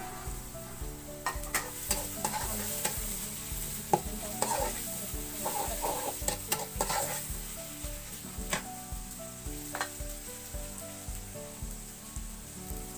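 Sliced onions frying in hot oil in a small metal karahi, sizzling steadily, while a metal spatula stirs them with scraping and clinking against the pan; the sharpest clink comes about four seconds in.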